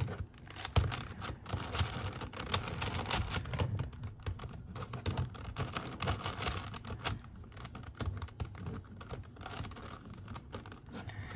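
Plastic Megaminx puzzle being turned fast in the hands: a dense, irregular run of clicks and clacks as its faces are twisted.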